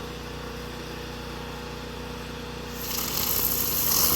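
A steady engine-like hum runs throughout. About three seconds in, a loud, high hiss begins and keeps on, like a ground firework fountain spraying.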